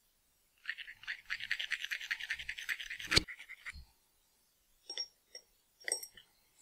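Whole nutmeg being grated on a small hand grater over a mixing bowl: a run of quick, even scraping strokes lasting about two and a half seconds, ending in a single sharp knock, then a few light clicks.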